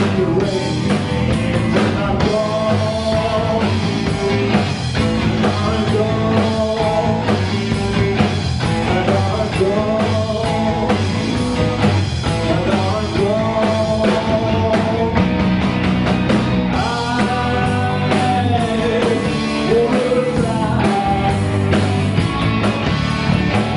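Live blues band playing a rock-and-roll style number, with guitar and singing over a steady bass and drum groove.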